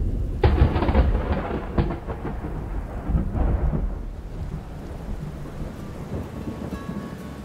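Thunderstorm: a sudden thunderclap about half a second in that crackles for over a second and rolls into rumbling, with a smaller crack around three seconds, over steady low rumble and rain that fade toward the end.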